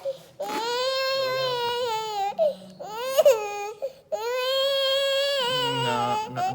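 Baby crying: two long wails of about two seconds each, with a short sharp cry between them.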